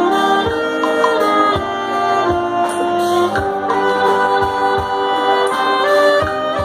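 A band playing: long held melody notes over a steady, regular drum beat.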